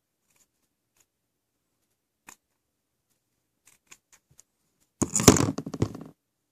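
Small scissors snipping a cotton pad, a few faint short clicks. About five seconds in comes a loud second of rubbing and knocking as the hand handles things right against the microphone.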